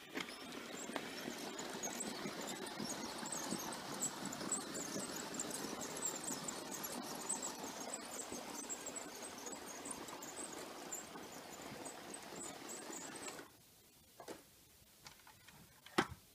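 LEGO model steam locomotive and tender, powered by two Power Functions M motors, running on plastic LEGO track: a steady whirring rattle of motors, gears and wheels with a faint high squeal. It stops abruptly about 13 seconds in, and a couple of small clicks follow near the end.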